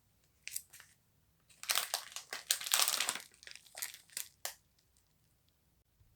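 Close-up handling noises from craft materials: a few sharp clicks, then a dense stretch of crinkling and rustling about a second and a half in, then more scattered clicks.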